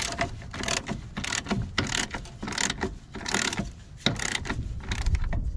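Socket ratchet clicking in repeated short bursts as it is swung back and forth, turning a 15 mm deep-wall socket on an extension to loosen the brake master cylinder's mounting nuts.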